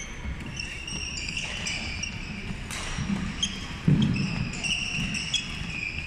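Badminton rally: shoes squeaking in short, repeated chirps on the wooden court floor, and rackets striking the shuttlecock in sharp hits, the loudest about four seconds in.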